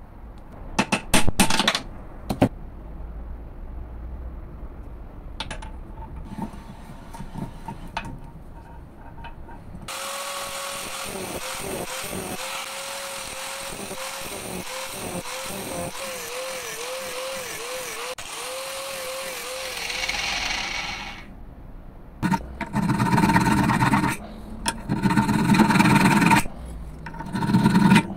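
A few sharp metal clicks as steel parts are handled. Then, for about ten seconds, an abrasive cut-off wheel runs and cuts into a steel block held in a vise, its motor pitch dipping again and again under load. After that come several loud strokes of a flat file rasping on the steel.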